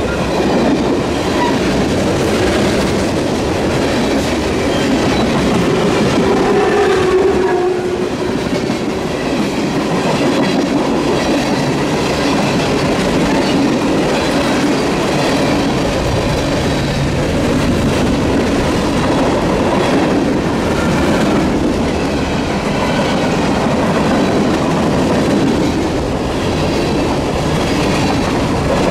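Freight cars of a passing train rolling by at close range: tank cars and then covered hoppers, with a loud, steady rumble and rattle of steel wheels on the rail.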